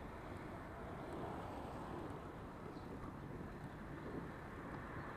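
Steady wind rumble on an action camera's microphone while cycling, mixed with the hiss and hum of traffic on a wet road.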